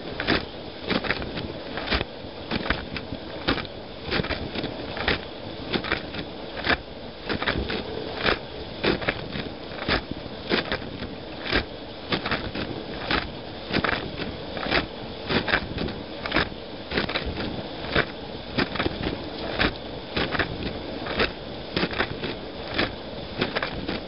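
Dishwasher running, heard from inside the closed tub: a steady rush of spraying water, with a sharp splash of water jets striking about once a second as the rotating spray arm sweeps past.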